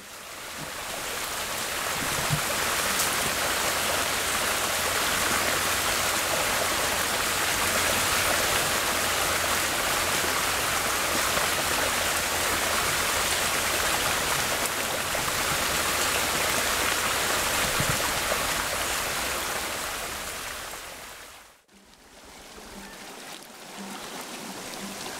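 Stream water running over stones in a shallow river, a steady even rush. It cuts out sharply about three-quarters of the way through and comes back quieter.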